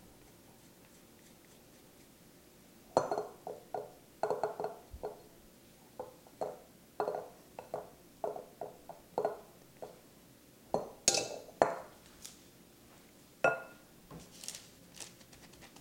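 Spatula scraping and knocking against a glass mixing bowl while soft cookie dough is scooped out: a string of irregular clinks and taps starting about three seconds in.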